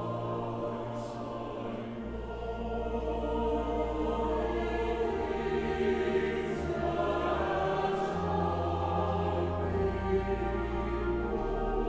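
A choir singing slow sustained chords over a deep bass line that moves between held notes every few seconds.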